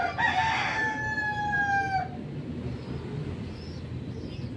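A rooster crowing once: a single long call of nearly two seconds, its pitch sliding slightly down near the end.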